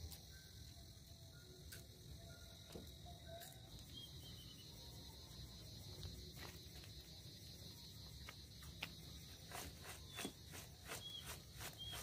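Night insects chirring steadily and faintly in the background. Near the end, a quick, regular run of sharp clicks, about three or four a second.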